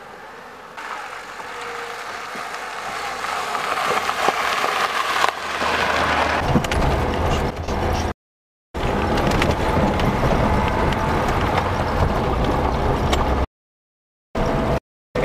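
Car driving over a broken, potholed road surface: road and tyre noise grows louder, becoming a heavy rumble with repeated small knocks and jolts from about five seconds in. The sound cuts out completely for short moments three times.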